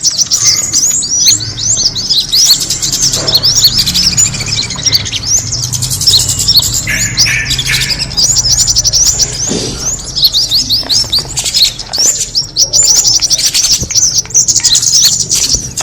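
Kemade bird lure call: a continuous stream of rapid, high-pitched chirps and twitters, many short notes in quick succession.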